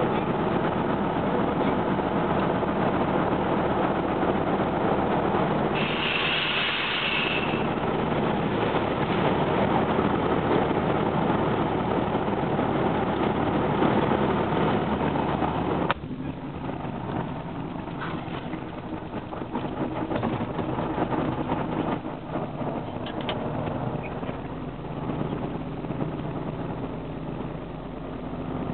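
Tatra 815 truck's diesel engine running steadily. About halfway through its sound drops suddenly to a lower, quieter run. A brief high-pitched sound lasts about a second and a half around a quarter of the way in.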